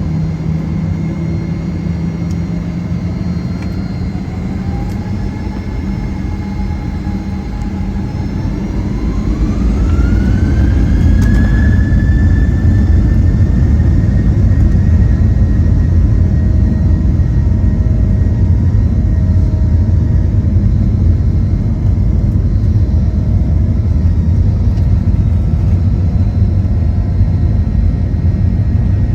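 Boeing 737-900's CFM56 jet engines heard from inside the cabin, spooling up with a rising whine to takeoff thrust, then running loud and steady with a deep rumble as the takeoff roll begins.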